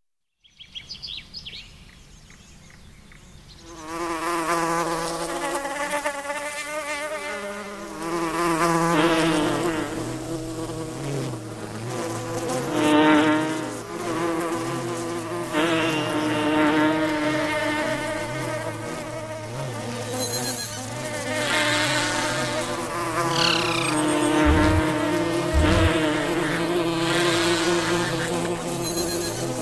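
Several flying insects buzzing as they pass, their buzzes overlapping and wavering in pitch, starting about four seconds in. Two brief low thuds come a little past three-quarters of the way through.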